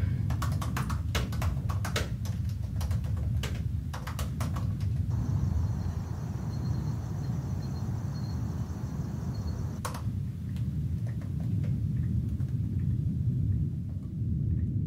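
Laptop keyboard being typed on, quick runs of key clicks over a steady low rumble. Midway the typing pauses for about five seconds while a faint, high, steady chirring is heard, then scattered key clicks resume.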